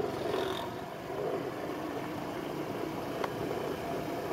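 Cruiser motorcycle engine running steadily while the bike rides along.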